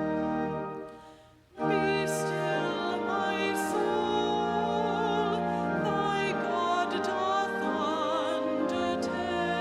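Classical-style music: a singer with wide vibrato over sustained, held accompaniment chords. The music fades out about a second in and comes back in about a second and a half in with a new phrase.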